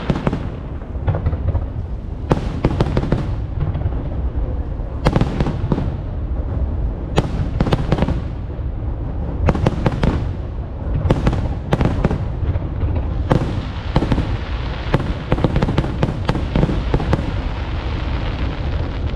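Fireworks display: aerial shells bursting one after another, sharp bangs, some in quick clusters, over a continuous low rumble.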